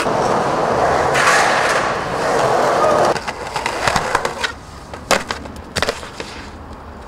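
Skateboard wheels rolling loudly on concrete, then sharp clacks and two hard impacts a little under a second apart as the board and rider slam onto the concrete in a bail.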